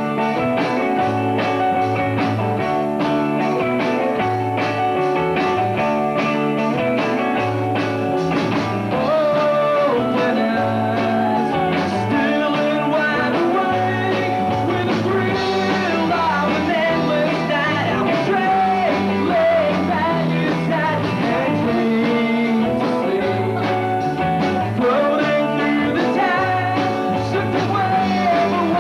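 Rock band playing live: electric guitars, electric bass and drums, with a male lead vocal coming in about nine seconds in.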